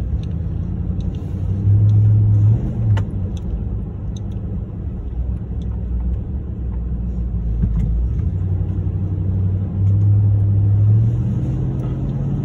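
Cabin sound of a Nissan Titan pickup's V8 driving slowly on a residential street: a low engine drone with road noise, swelling as the truck speeds up about two seconds in and again near the end.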